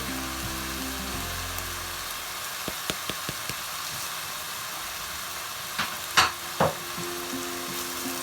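Onion paste and spices frying in oil in a pan, a steady sizzle. A few light clicks come about three seconds in, then three louder knocks of a spoon against the pan around six seconds in.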